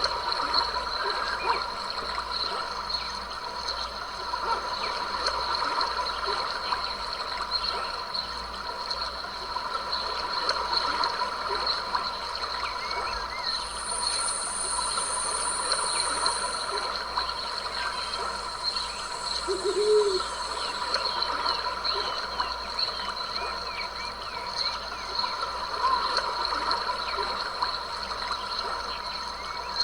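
A small creek running and trickling over stones, steady and continuous. A high steady buzz comes in for a few seconds midway, and a short low call is heard once a little later.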